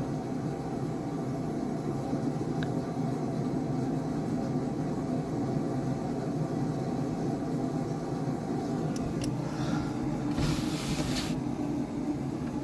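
Snow-squall wind: a steady low rumble, with one hissing gust about ten seconds in.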